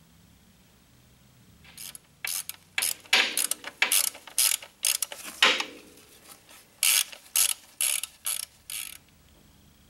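Ratchet wrench clicking through a quick run of short strokes, tightening the bolts of a plate on a Ford 8N tractor's transmission. The clicking starts about two seconds in, pauses briefly partway through, and stops a second before the end.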